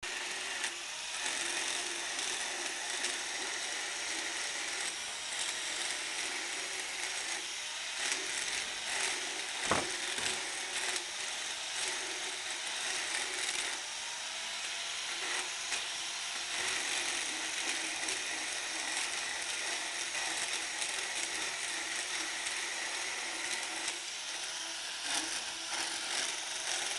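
Cordless motorized dental float grinding down a horse's teeth: a steady, rasping grind with a faint wavering motor whine under it. A sharp click comes about ten seconds in.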